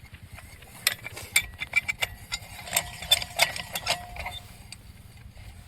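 A quick, irregular run of sharp metallic clicks and clinks, some ringing briefly, over a low steady rumble. The clicking thins out after about four seconds.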